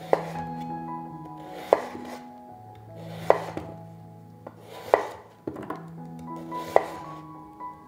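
Chef's knife chopping a peeled potato into chunks, each stroke ending in a sharp knock on a wooden cutting board: five chops, about one every second and a half.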